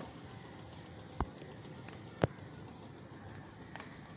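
Open-air background noise, a steady even hiss, broken by two sharp knocks about a second apart, the second louder.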